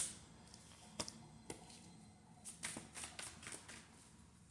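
A tarot deck being shuffled by hand, the card edges making faint clicks: one about a second in, another half a second later, then a quicker run of clicks in the second half.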